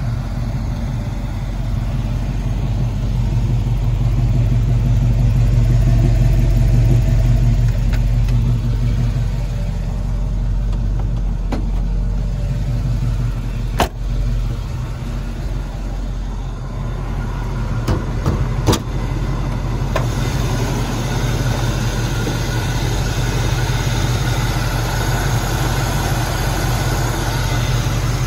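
Chevrolet K10 pickup's engine idling steadily. A sharp click of the door latch comes about halfway through, and two more knocks follow a few seconds later.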